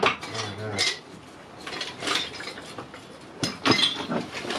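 Metal hand tools clinking and clattering irregularly as they are rummaged through in a toolbox, with the busiest clatter near the end.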